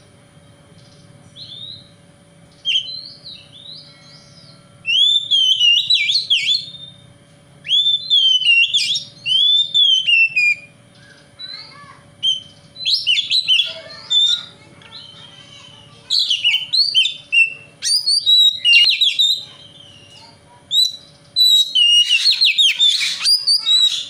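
Oriental magpie-robin singing: a few soft notes at first, then, from about five seconds in, loud phrases of sweeping whistled notes that rise and fall, coming in bursts every few seconds.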